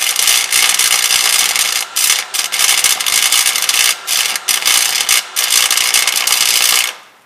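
Electric welding arc crackling and sputtering while a weld is laid on a truck exhaust, in long runs with a few brief breaks, stopping about seven seconds in.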